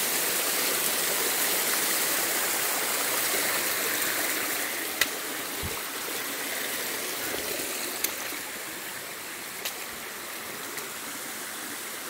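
Small rocky forest stream running over little cascades, a steady rush of water that grows fainter in the second half. A few brief sharp clicks break through it.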